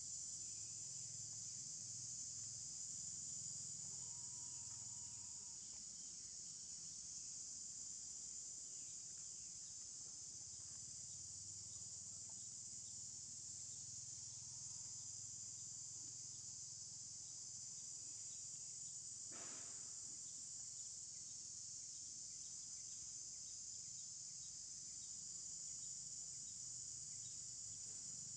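Steady high-pitched drone of an insect chorus, with one brief sharp sound about two-thirds of the way through.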